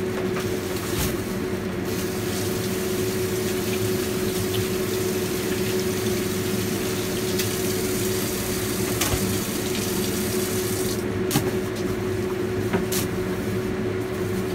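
Steady rushing of running water, over a constant low hum, with a few faint clicks.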